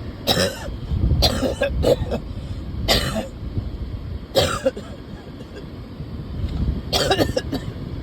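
A person coughing in short, sudden fits, about five bouts over eight seconds: a cluster in the first two seconds, single coughs about three and four and a half seconds in, and a double cough near the end.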